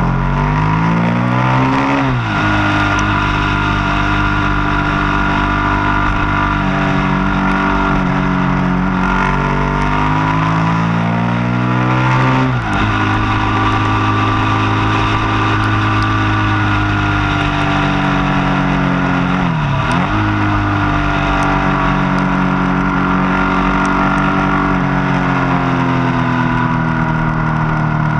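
Motorcycle engine heard from the rider's position at speed. Its pitch climbs, drops sharply at a gear change about two seconds in, then holds a steady note with brief dips about halfway and about two-thirds through, over constant wind rush.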